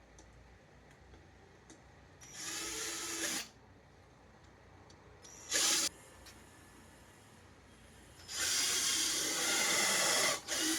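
Power drill run in four bursts: a short one, a very brief one, a longer one of about two seconds, and a brief one at the end.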